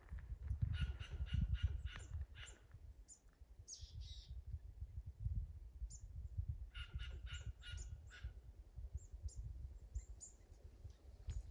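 Repeated short calls from an animal in the trees, in two bouts of several notes each at about four notes a second, with a few scattered single notes between them.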